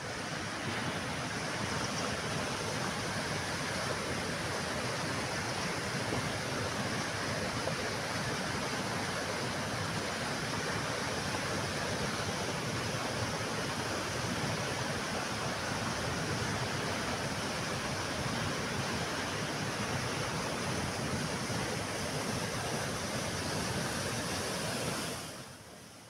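Floodwater rushing in a steady, even noise from a swollen river and open spillway gates, fading out near the end.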